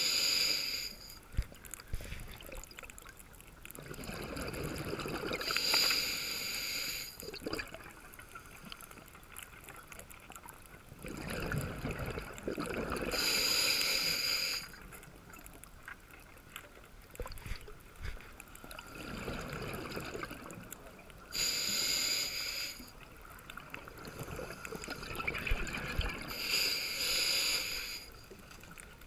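Scuba diver breathing through a regulator underwater: a hissing inhale of about a second and a half alternating with a burbling rush of exhaled bubbles, one breath every seven or eight seconds.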